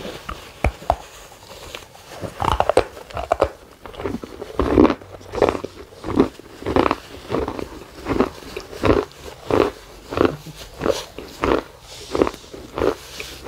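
A person biting into a hard, brown disc of food and chewing it with a crunch. A few sharp cracks come at the first bite, then a steady rhythm of chews, about three every two seconds.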